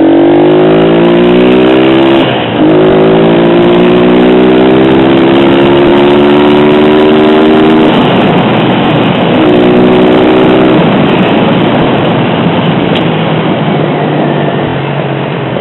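Single-cylinder engine of a 1999 Honda CG Titan 125 motorcycle accelerating away through the gears: its pitch climbs, drops with a shift about two seconds in, climbs again and shifts once more around eight seconds. In the later part, a steady rush of wind and wet-road noise takes over from the engine note.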